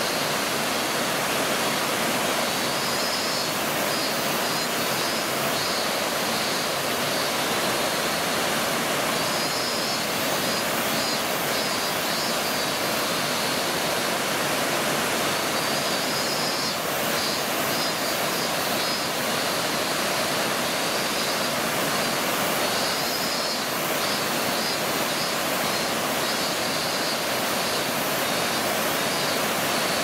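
Nunobiki Falls waterfall: a steady, unbroken rush of falling water. A faint high-pitched pulsing chirp comes and goes over it.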